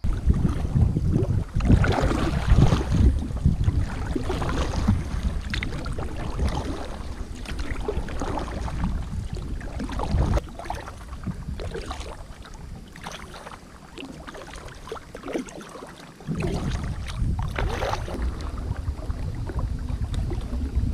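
Kayak on a river: paddle splashes and water moving against the hull, under heavy wind rumble on the microphone. The wind rumble eases for a few seconds past the middle and then comes back suddenly.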